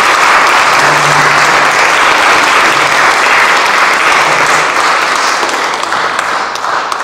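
Audience applauding, a dense, steady clapping that thins out near the end.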